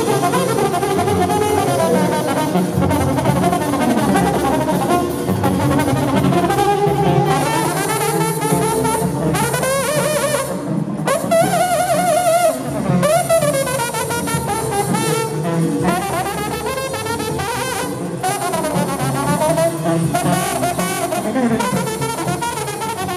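Trombone solo in a live banda performance: a loud brass melody of quick runs over the band's backing, with the notes wavering in fast shakes about ten to thirteen seconds in.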